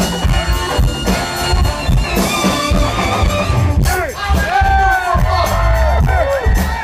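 Southern rock band playing live, with drum kit, electric guitars and saxophone, heard from the audience.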